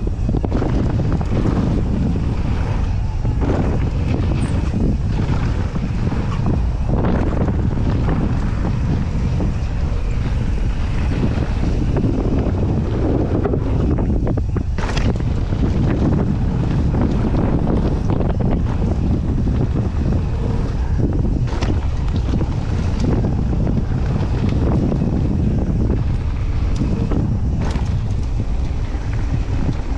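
Wind buffeting the microphone of a camera riding on a mountain bike descending a dirt downhill trail, over the rumble of the tyres and the rattle of the bike, with a few sharp clacks as it hits bumps.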